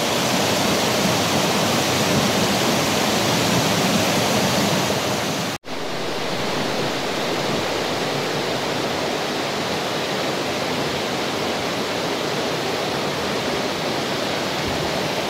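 River water rushing steadily, a loud unbroken roar with a momentary break about five and a half seconds in.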